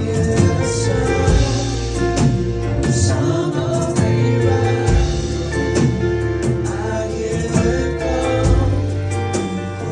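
Live gospel worship music: a band playing held keyboard chords over a bass line and a steady beat, with singing over it.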